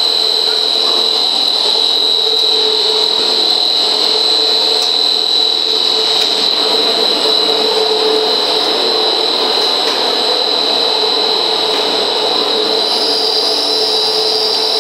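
MT-100 single-screw food extruder line running: a steady machine drone with a constant high whine over a lower hum. The whine steps up slightly in pitch near the end.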